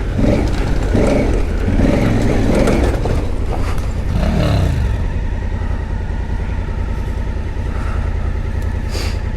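Twin-cylinder adventure motorcycle engine running at trail speed, the throttle opening and closing, with its pitch falling away about four seconds in.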